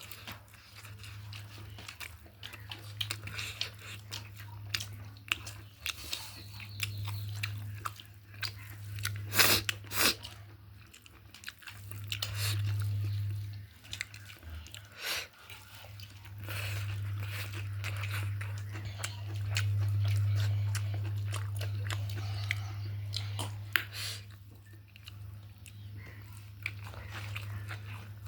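A person eating chicken: chewing, biting and crunching, with many small wet clicks, over a low steady hum that swells louder for a few seconds at a time.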